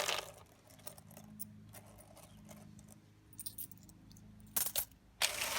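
Coins jingling and rattling in a vending machine's coin box, in a few short bursts, with a louder, longer rattle near the end.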